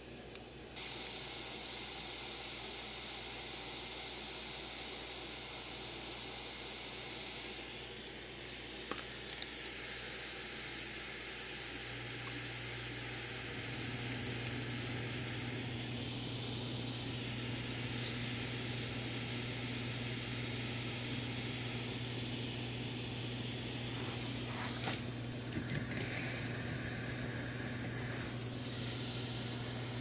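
Steady hiss, loudest in the first several seconds and again near the end, with a low steady hum joining about twelve seconds in.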